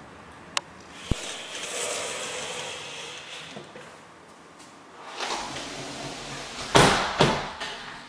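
Sliding balcony door being worked: two sharp clicks, a rolling slide lasting about two seconds, then two loud knocks near the end as it is shut.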